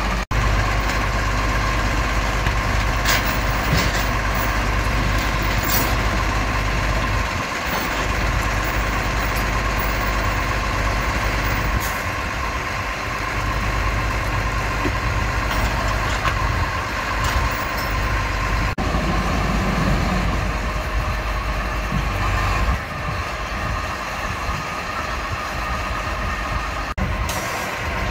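Heavy diesel truck engine idling steadily, with a few short hisses or clicks on top.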